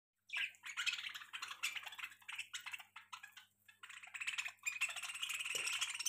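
A flock of budgerigars chattering: rapid, overlapping chirps and squawks that grow denser toward the end.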